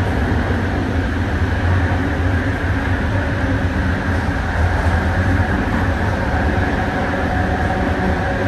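RapidKL ART200 linear-induction-motor train heard from inside the carriage while running: a steady, loud wheel-on-rail rumble with a low hum, and faint tones rising out of it near the end.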